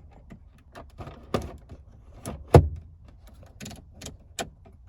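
Plastic climate-control levers and knobs in a 1990s pickup's dashboard clicking as they are worked by hand: about six sharp clicks and knocks, the loudest a little past halfway.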